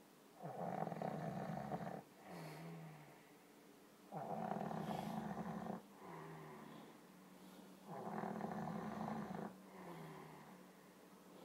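A sleeping monkey snoring in a slow, regular rhythm: about three breaths, each a loud, rasping snore followed by a softer, lower breath with a faint tone.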